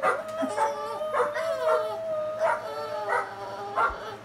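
Dogs barking on a YouTube video played through a computer's speakers, about six barks over a long, drawn-out howl that is held throughout.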